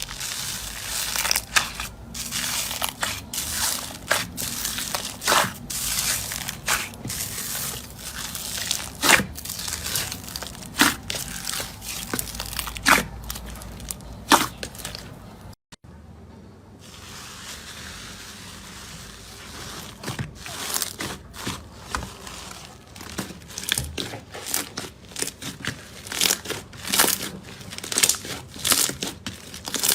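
Slime being squeezed and stretched by hand: a dense run of sticky crackles, clicks and small pops, broken by a short gap about halfway through.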